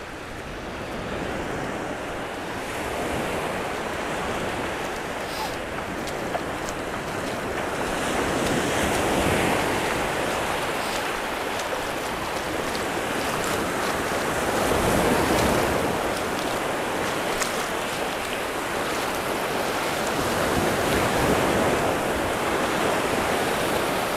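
Small surf waves breaking and washing up the shore. The sound swells louder about every six seconds as each wave breaks.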